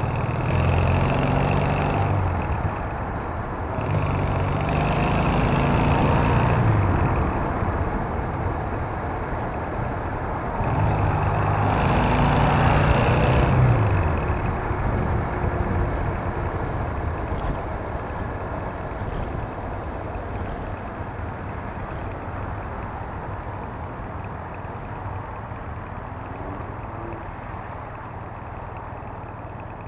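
Triumph Bonneville's parallel-twin engine on the move, pulling hard three times with its pitch rising on each pull. It then eases off and runs quieter and steadier, under a constant rush of wind and road noise.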